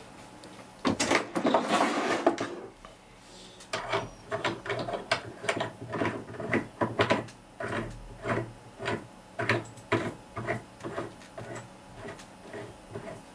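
A two-part flash hider (aluminium outer shell over a steel inner cone) being screwed by hand onto a rifle's threaded muzzle: a burst of handling rustle about a second in, then a long run of small metallic clicks and scrapes, two to three a second, as it is turned on the thread.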